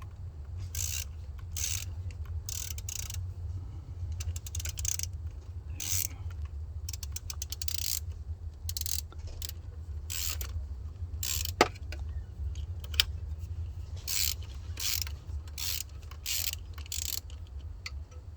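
Ratchet spanner undoing a nut, in repeated short bursts of clicking with pauses between strokes, over a steady low hum. Two sharper metallic clicks come about two-thirds of the way through.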